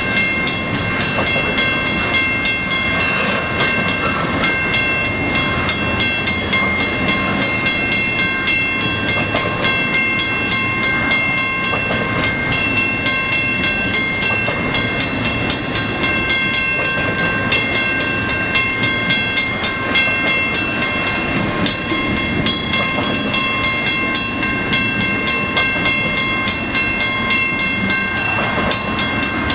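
Intermodal freight train's container cars rolling past close by, wheels clacking over rail joints in a quick, uneven rhythm. Over this, a grade-crossing bell rings steadily with high, ringing tones.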